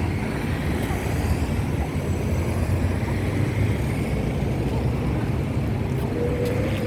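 Steady low rumble of a vehicle running on the road, with a thin steady tone coming in near the end.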